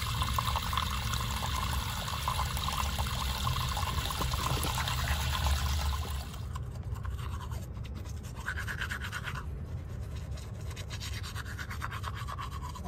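Water running from a faucet into a sink for about six seconds, then a toothbrush scrubbing teeth in short strokes.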